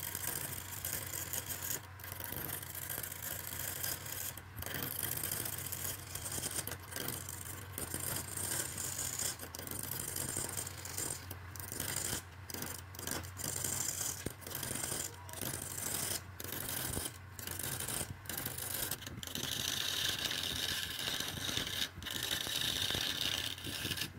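A wood lathe's motor hums steadily while a hand-held turning tool scrapes and cuts into the spinning wooden blank, cutting grooves and throwing off shavings. The cutting noise comes in repeated strokes broken by many short gaps, and it gets brighter and hissier near the end.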